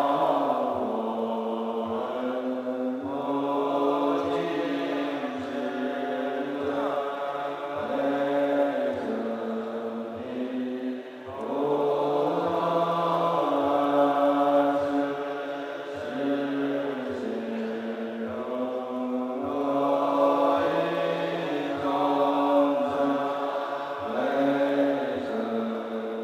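Large assembly of Chinese Buddhist monks chanting the morning liturgy in unison, a steady drawn-out recitation. A soft low beat keeps time a little faster than once a second.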